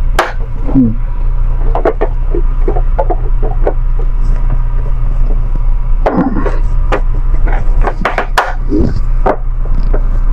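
Plastic diffuser cover being fitted onto a ceiling light fixture: irregular clicks, taps and creaks, heaviest about six and eight seconds in, over a steady loud low hum.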